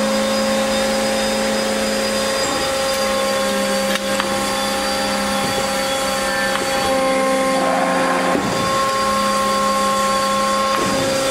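Hydraulic power unit of an Accurpress 100-ton CNC press brake running with a steady mechanical whine of several tones, as the ram cycles. The tones shift a few times, there is a click about four seconds in, and a brief hiss comes just before the eight-second mark.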